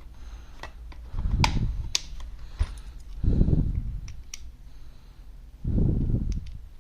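Small sharp clicks and taps of metal bits and a plastic case being handled while a precision screwdriver bit is picked out and fitted, with three soft low rumbles of handling noise.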